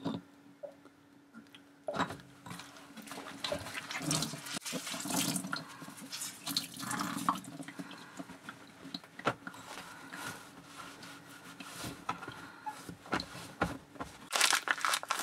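Leftover water trickling and splashing out of a single-lever mixer tap's open body after its cartridge has been pulled, with small knocks of handling. Near the end comes a louder rustling of a cloth wiping up the water.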